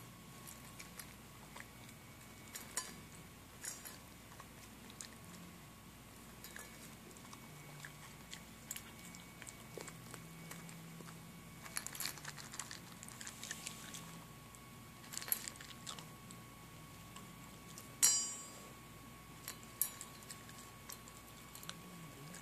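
A puppy crunching dry kibble from a stainless steel bowl, in irregular clusters of crunches, with one sharp clink on the metal bowl about three-quarters of the way through.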